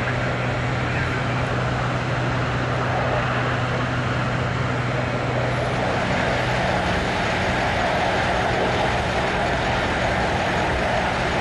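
Steady roar of a ruptured natural gas main burning, growing a little stronger about halfway through, over the low steady hum of fire engines' diesel engines running.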